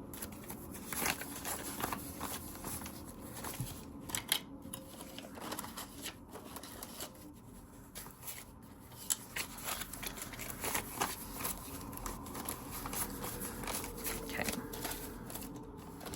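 Paper banknotes being counted and handled, with irregular rustling and flicking and scattered short sharp clicks or taps as the cash is sorted into savings envelopes.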